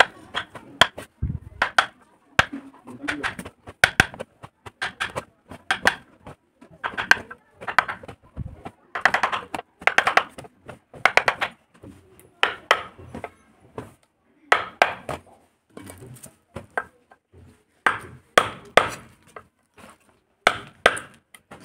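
Carving chisel being tapped into a wooden board while cutting a flower design, giving many sharp taps at an irregular pace, often in quick runs of several.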